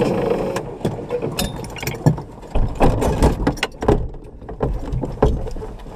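Rally buggy's engine dying away in the first moment, followed by scattered knocks and clatter in the cockpit: the engine has cut out, which the crew put down to the ignition failing.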